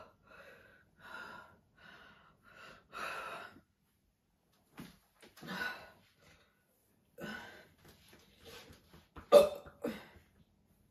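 A woman's short burps and hiccup-like gulps from a stomach full of carbonated soda, about a dozen in a row with short gaps between them; the loudest, a sharp burp, comes about nine seconds in.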